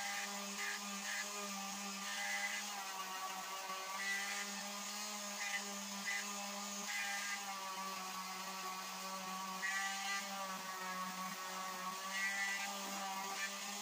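Electric palm sander running steadily on palochina wood, its motor pitch wavering slightly as it is pressed and moved, with short scratchy bursts from time to time.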